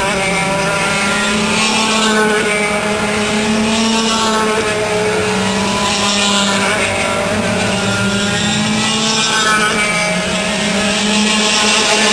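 Several racing go-kart engines running hard as the karts circulate and pass, their pitch rising and falling over and over.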